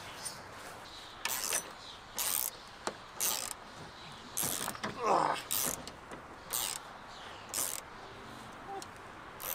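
Hand ratchet driver clicking in short strokes about once a second as it loosens the bolts on a truck's battery terminal clamps.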